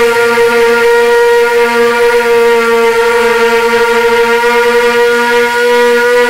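Small drone's electric motors and propellers whining loudly at one steady pitch as it climbs, heard close up from its onboard camera.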